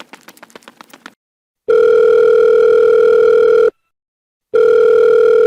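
Faint light taps, then a telephone ringing tone heard down the line while a call connects: two long steady beeps of about two seconds each with a short gap between them.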